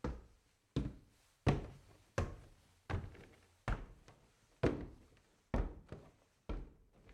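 Boots walking at a steady pace on a wooden path: a regular series of about nine heavy footfalls, each a dull thud on the boards that dies away quickly, the steps slowing slightly toward the end.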